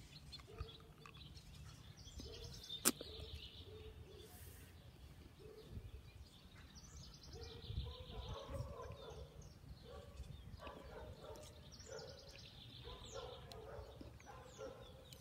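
Faint outdoor birdsong: a short trilling phrase repeated three times, about five seconds apart, with scattered softer chirps. A single sharp click sounds about three seconds in.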